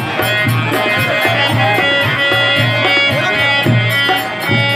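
Devotional bhajan-kirtan folk music through a microphone: a man singing over held instrumental tones and a low drum beat about twice a second.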